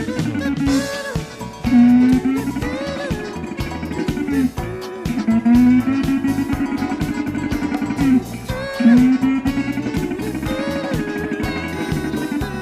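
Music with plucked guitar, a short melodic phrase repeating about every three and a half seconds over a steady beat.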